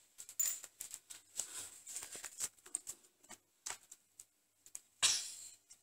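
Kitten scrabbling at fabric slippers and their shoelaces on a wooden floor: light, irregular scratches, taps and rustles, with a louder rustle about five seconds in.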